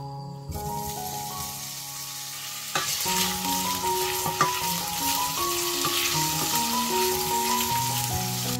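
Diced bacon sizzling in hot oil in a stainless steel pot. The sizzle grows louder about three seconds in, with a few knocks as a wooden spatula stirs it. Soft background music plays throughout.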